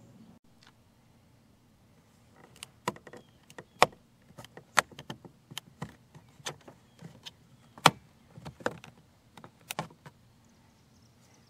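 Irregular sharp clicks and knocks, a couple of dozen over about seven seconds, from a hand handling the plastic trim of a car's interior door panel.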